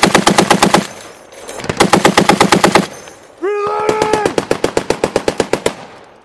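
Browning M2 .50 calibre heavy machine gun firing three bursts at about ten shots a second. The first burst stops just under a second in, the second runs from about 1.7 to 3 seconds, and the last from about 3.7 to 5.7 seconds. A short held tone, rising at its start, sounds over the start of the last burst.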